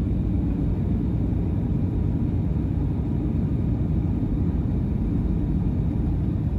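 Steady low rumble of a jet airliner in flight, heard inside the passenger cabin: engine and airflow noise.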